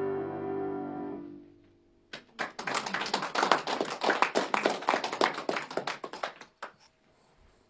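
Upright piano's final chord dying away, then, after a brief pause, a small group of people clapping for about four seconds before the applause stops.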